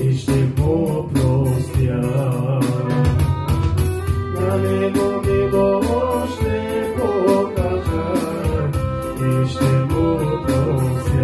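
Electronic arranger keyboard playing the accompaniment of a gospel-style song: a steady drum beat and bass under chords and a wavering melody line.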